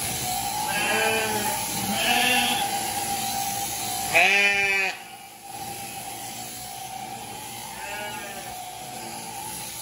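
Sheep bleating four times, the third bleat about four seconds in the loudest and longest, over the steady buzz of an electric sheep-shearing handpiece cutting fleece, which stops briefly just after the loud bleat and then starts again.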